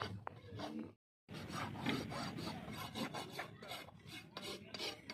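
Farrier's hoof knife scraping a horse's hoof for about a second, then a brief dead gap, then a hoof rasp filing the hoof in a steady run of strokes, about two to three a second.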